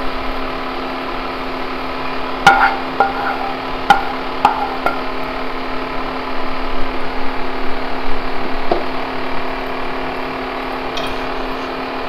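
A wooden spatula scrapes and knocks against a nonstick frying pan and a plate as noodles are pushed out of the pan. There are a few sharp clinks with a short ring, clustered between about two and five seconds in, over a steady mechanical hum.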